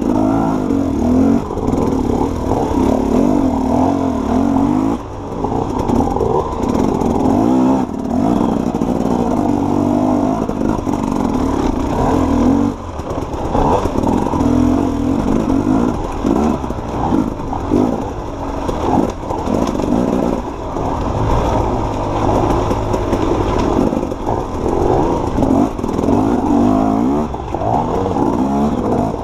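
Dirt bike engine running under constant throttle changes, revving up and easing off again and again, with dips near 5 s and 13 s, and rattling and clatter from the bike over rough ground.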